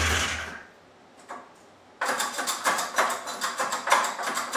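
Two-stroke engine of a 1976 John Deere 440 snowmobile being started: a short burst of noise at the start, then about two seconds in a fast, even mechanical clatter begins suddenly and keeps going.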